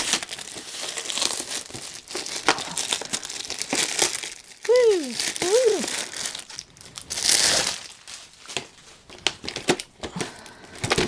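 Packaging crinkling and rustling as a planner is unwrapped and handled, with two short squeaks that rise and fall in pitch about five seconds in.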